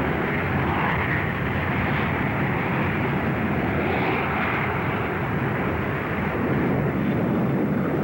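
Handley Page HP.115 slender-delta research jet flying past on its single Viper turbojet: a steady jet rush with slight swells about a second and four seconds in.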